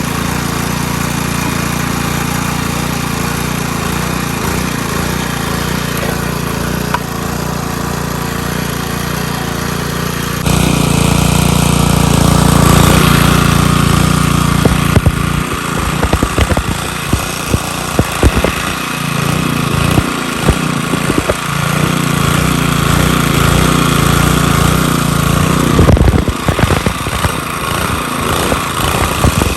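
Small gasoline engine running steadily. About ten seconds in the sound changes abruptly and gets louder, and from about halfway on many sharp knocks and rattles come over the engine.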